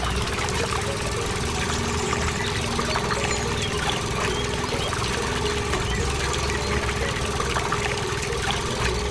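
Small electric motor of a miniature model water pump running steadily with a constant whine, while water trickles and splashes from its hose.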